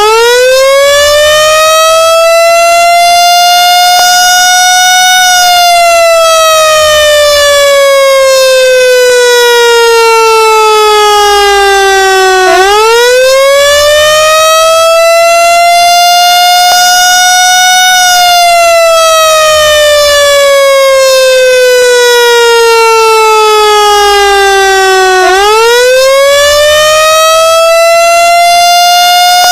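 Siren wailing in slow, even cycles: the pitch rises over about five seconds, levels off, then falls slowly for about seven seconds before rising again, three rises in all. It is very loud.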